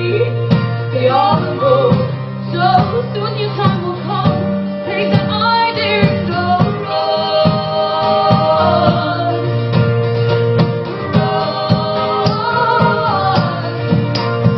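Live music: voices singing wordless harmonies over a rhythmically strummed acoustic guitar.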